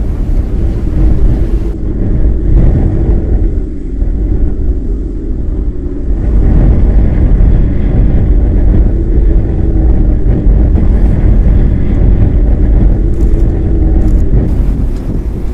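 Strong storm wind buffeting the microphone: a loud, steady low rumble.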